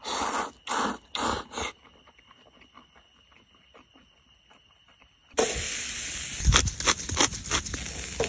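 Three loud slurps of noodles in quick succession, then a few quiet seconds. Then a sudden steady sizzle with many crackles and pops starts as a slice of raw meat is laid on a charcoal grill's wire mesh.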